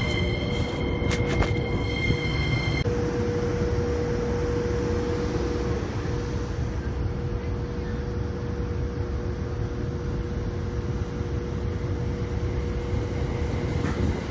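Electric commuter train sounds: a few high steady tones and a couple of sharp clicks, then a sudden change about three seconds in to a steady low rumble with a faint held tone as a train approaches along the track.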